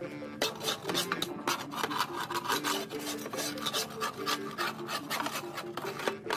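Metal bar scraping and rasping in repeated, irregular strokes against the underside of a lawn mower deck, digging out caked grass deposits.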